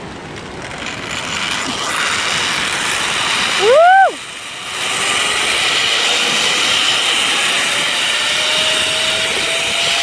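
Zipline trolley pulleys running along the steel cable with a rushing hiss of wind, growing louder over the first two seconds as the ride picks up speed. A short cry rises and falls in pitch about four seconds in, the loudest moment. A faint whine climbs slowly in pitch in the second half.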